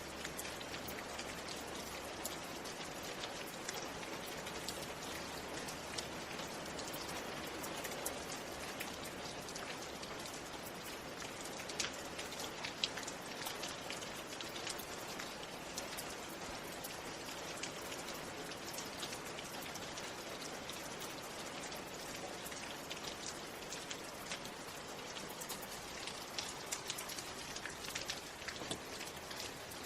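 Steady rain falling, with individual drops ticking sharply here and there.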